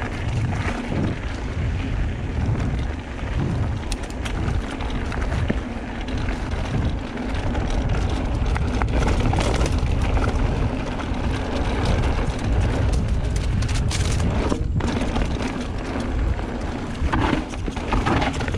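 Wind buffeting the microphone and the rumble of mountain-bike tyres rolling fast over hard-packed dirt singletrack, with a few sharp rattles from the bike over bumps.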